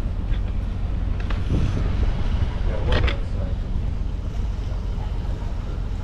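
Steady low rumble of a moving houseboat with wind buffeting the microphone, plus one short sharp sound about three seconds in.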